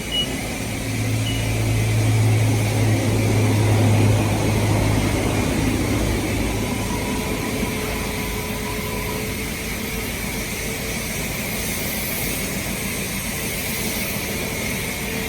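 Chrysler Valiant's LA 318 V8 driving along, its low engine hum loudest in the first few seconds, then settling into a steady run under road and wind noise.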